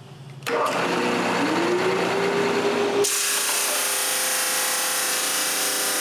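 Ryobi drum sander starting up, its motor rising in pitch as it comes up to speed, then running steady. The sound changes abruptly about three seconds in.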